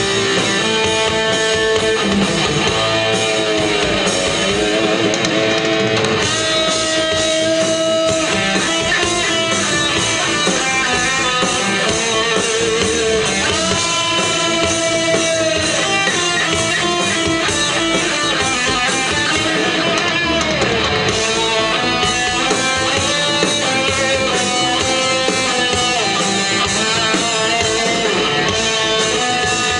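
Live rock band playing an instrumental passage led by electric guitar, with held notes and bends over a steady full band.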